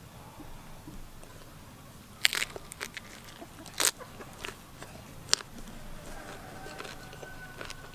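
A person biting into and chewing crunchy food: sharp crunches about two, four and five seconds in, with smaller crunches between.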